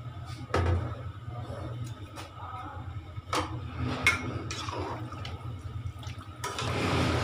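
Wet soaked rice in a metal pot of watery gravy: a few sharp knocks, then a spoon stirring and sloshing the liquid near the end, over a steady low hum.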